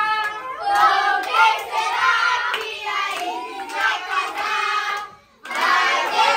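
A group of children and adults singing together while clapping their hands. The singing breaks off briefly about five seconds in, then starts again.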